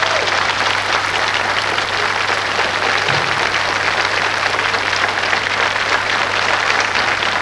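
Studio audience applauding, steady dense clapping, with a constant low hum underneath.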